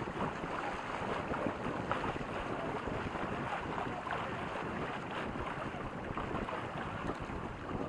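Steady wind noise buffeting the microphone, mixed with water rushing along the hulls of a sailing catamaran under way.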